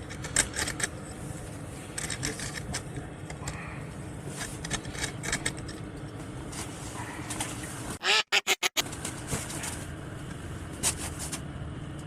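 Scattered clicks, knocks and scrapes over a steady low hum, with a short burst of sharp crackles about eight seconds in.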